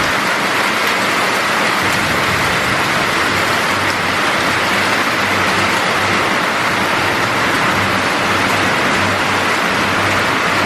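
Heavy rain pouring down in a steady, even rush during a thunderstorm, with a steady low engine hum underneath.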